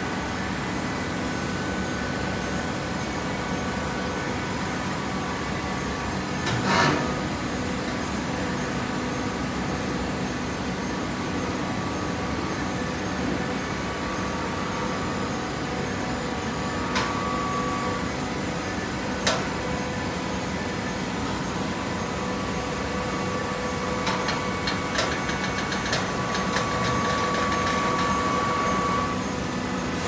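Horizontal hydraulic baler running with a steady mechanical hum and whine. There is one knock about seven seconds in and a couple of sharp clicks later. Near the end a rapid rattle sets in and the whine grows louder for several seconds before easing off.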